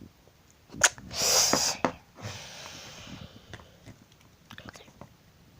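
A sharp click about a second in, then a loud breathy puff of air lasting under a second, trailing into a fainter breathy hiss.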